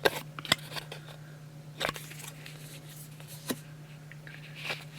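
Trading cards being handled and flipped through one at a time: five or so sharp clicks and snaps of card stock at irregular intervals, over a steady low hum.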